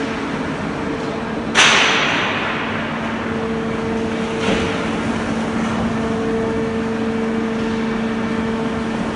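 High-frequency tube welding mill running: steady machine noise with a constant low hum. A sudden loud burst comes about one and a half seconds in and fades away over a second or so.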